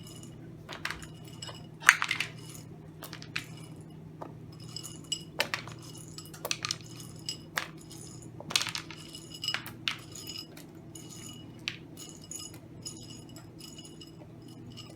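Kitchenware clinking and tapping: irregular sharp clicks and knocks of utensils and dishes, over a steady low hum.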